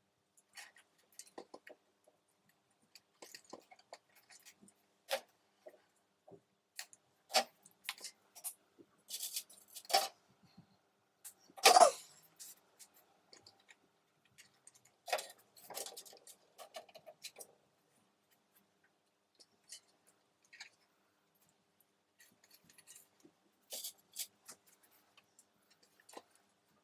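Irregular small clicks, taps and rustles of hands working with materials, with the loudest rustling clatter about twelve seconds in.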